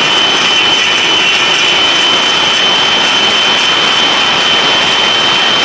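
Table saw running steadily with a high, even whine, used to trim the edge of a plywood disc round into a bandsaw wheel.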